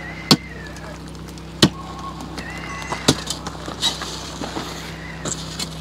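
Iron bar striking solidified sulfur at a sulfur-mine gas pipe: three sharp strikes about a second and a half apart, with lighter knocks between, over a steady low hum.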